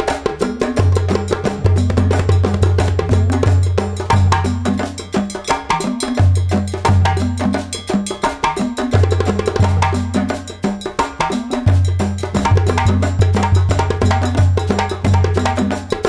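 Music with a heavy, pulsing bass line and busy percussion played loud through a Topas Audio sound system during a sound check.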